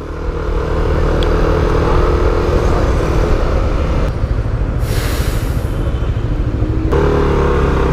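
Motorcycle engine running while riding, with steady road and wind rumble picked up by a helmet-mounted microphone. A brief loud hiss about four seconds in, and the engine note changes near the end.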